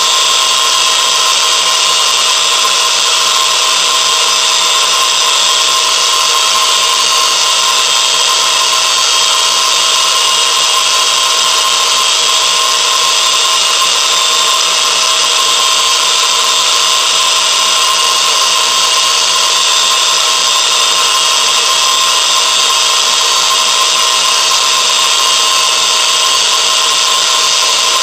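A motor-driven machine running steadily: an even hiss with a constant whine that never changes.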